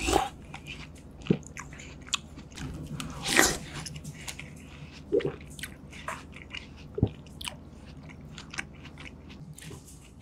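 A person chewing mouthfuls of food close to the microphone, with irregular wet mouth clicks and one louder mouth noise about three and a half seconds in.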